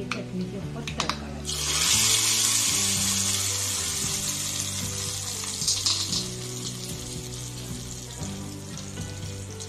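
Hot tempering oil with mustard seeds, cumin and curry leaves poured onto wet mint chutney: a couple of clinks, then a sudden loud sizzle about a second and a half in that slowly dies away. Background music throughout.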